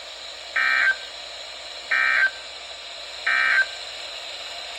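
Emergency Alert System end-of-message signal on NOAA Weather Radio: three short buzzing SAME digital data bursts, about a second and a half apart, over steady radio hiss. It marks the end of the warning broadcast.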